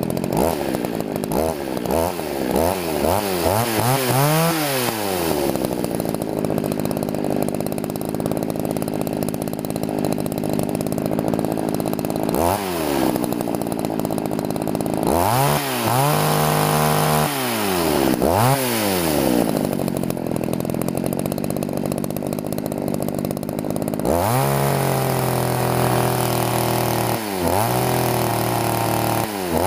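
Two-stroke Poulan chainsaw engine running, revved repeatedly from idle to high speed and back while its carburetor is tuned. Several quick blips come in the first few seconds. It then settles to idle, is held at high speed twice for a couple of seconds each, and drops back to idle between.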